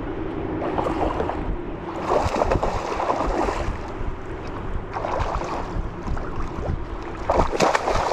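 Wind buffeting the microphone over water lapping at a boat's hull, in several louder gusts of noise. Near the end a hooked bass thrashes at the surface, splashing.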